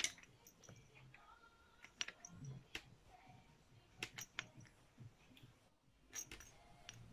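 Faint, irregular clicks and clacks of a wooden bead teething toy as a baby chews on it and handles it.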